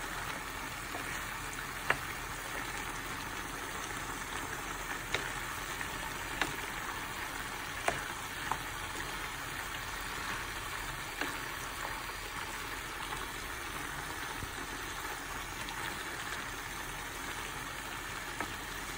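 Stir-fried vegetables and turkey breast sizzling steadily in a pan as the soy-sauce gravy, thickened with a flour-and-water slurry, cooks down. A few sharp pops come through the sizzle.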